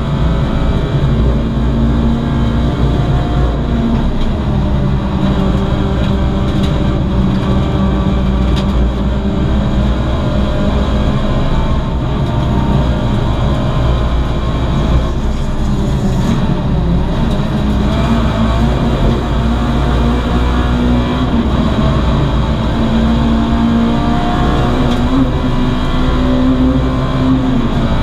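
VW Lupo GTI race car's 1.6-litre four-cylinder engine running hard around a circuit, heard from inside the cabin, its note rising and falling with the revs, over wind and road noise.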